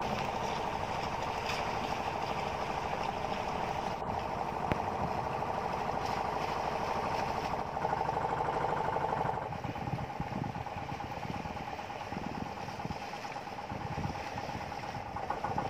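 Engine of an outrigger fishing boat running steadily, easing slightly about two-thirds of the way through.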